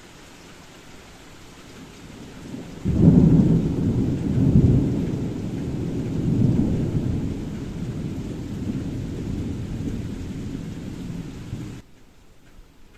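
Thunder over steady heavy rain: about three seconds in a loud clap breaks into a long low rumble that rolls on for some nine seconds, then cuts off sharply near the end.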